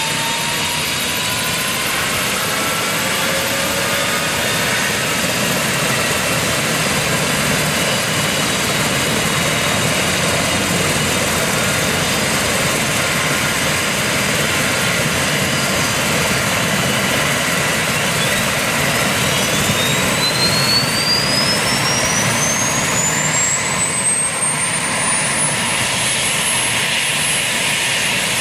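Eurocopter EC135 trauma helicopter running on the ground with its rotor turning as its turbines wind up before take-off: steady turbine and rotor noise, with a high whine that rises steeply in pitch about two-thirds of the way through and then holds.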